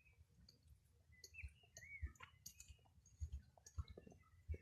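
Near silence: faint scattered clicks and soft low knocks, with a couple of short chirping tones about one and a half to two seconds in.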